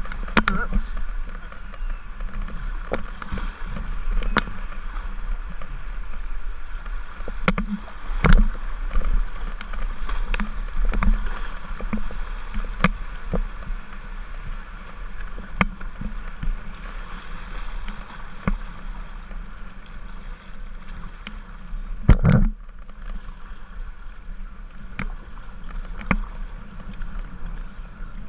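Whitewater rushing and churning around a kayak, with irregular splashes and knocks from paddle strokes and water hitting the hull; one louder slap late on.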